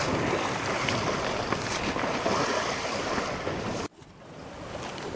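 Wind and sea waves around a small drifting boat, with wind buffeting the microphone. Nearly four seconds in the sound cuts off abruptly, then comes back quieter and slowly builds.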